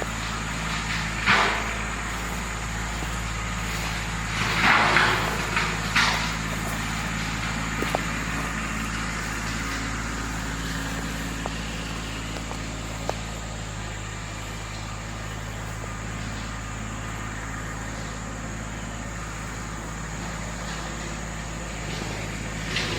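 An engine running steadily at an even speed, with a few short, louder bursts of noise, about a second in and again around five and six seconds in.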